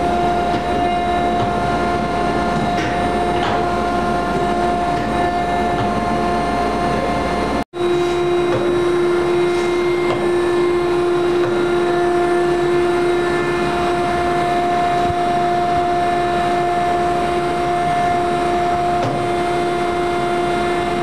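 Woodworking copy-lathe machinery running steadily: a continuous mechanical drone with a steady whine at two pitches. The sound drops out for an instant about eight seconds in.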